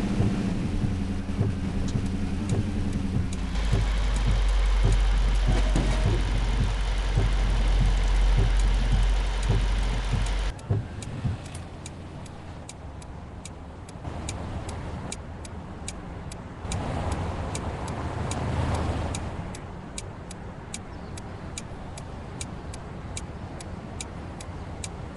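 Toyota Tundra cabin while driving: engine and heavy low road rumble, which drops off suddenly about ten seconds in to a lighter engine hum. Through the quieter part the turn-signal indicator ticks steadily, about twice a second, and the engine swells briefly partway through.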